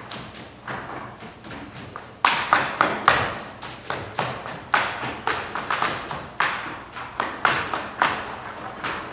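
Dancers making percussive hits on stage, a run of sharp slaps and stamps, two or three a second at an uneven pace, each with a short echo.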